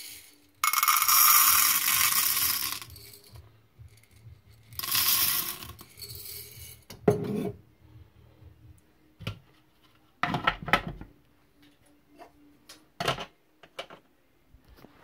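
Dried popcorn kernels poured from a glass jar into the chamber of an American Originals hot-air popcorn maker: a dense, hard rattling in two pours, the first the longer. A few separate knocks and clicks follow, the last as the plastic lid is fitted.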